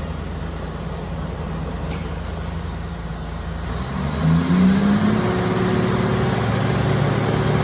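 Heavy diesel engine of a road construction machine running at low speed, then revving up about four seconds in and holding at the higher speed, with a faint rising whine above it.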